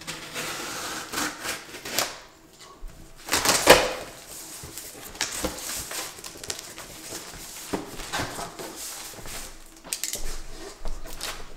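Large cardboard shipping box being opened by hand: irregular scraping, rustling and crinkling of cardboard and packing, loudest about four seconds in.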